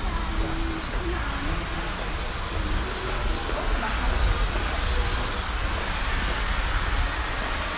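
Outdoor street ambience: a steady low rumble under an even background hiss, with faint voices of passers-by.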